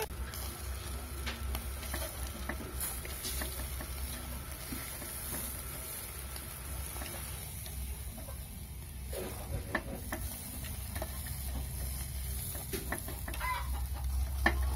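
Chicken pieces sizzling and smoking on a charcoal grill, with marinade dripping onto the coals and the odd click of metal tongs on the wire rack, over a steady low rumble. Chickens cluck now and then in the background, a few calls near the end.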